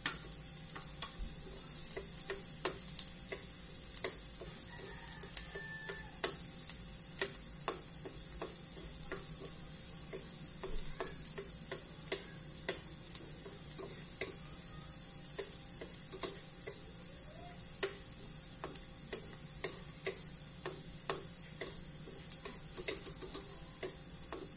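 Onion and garlic sizzling in oil in a steel wok, with a spatula stirring them and knocking against the wok in many irregular clicks.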